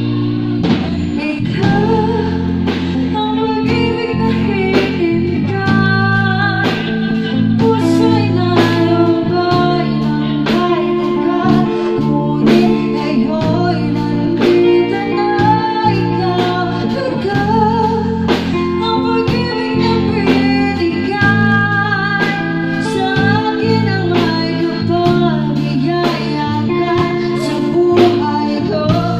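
Live band playing through PA speakers: a woman singing into a microphone over electric guitar, electric bass and a drum kit keeping a steady beat.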